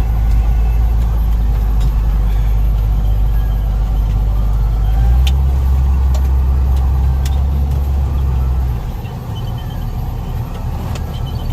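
Off-road 4x4's engine running under load, a heavy low rumble that rises in pitch about five seconds in and eases off near nine seconds, with a few light knocks.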